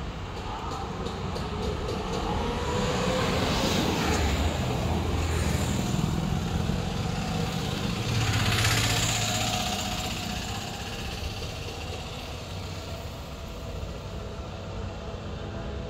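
Motor vehicle noise: a steady low hum that grows louder twice, about four and about eight and a half seconds in.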